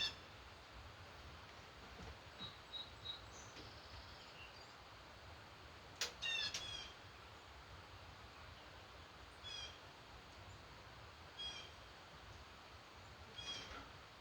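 Wild birds calling: short, sharp calls every few seconds, the loudest two about six seconds in, over a faint steady background hiss.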